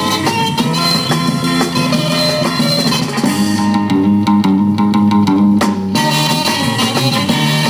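Music from a 1960s record: rock music with guitar and bass. For about two seconds in the middle the highest sounds drop away and low held notes come to the front.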